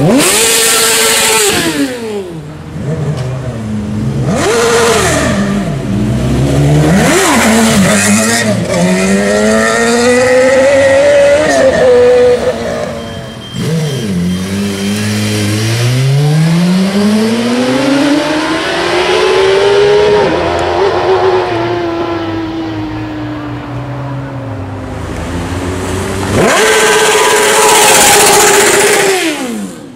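Sport motorcycle engines revving hard in quick throttle blips and accelerating. Each time the pitch climbs and then drops sharply, and there is one long climbing pull in the middle and a loud fly-by near the end.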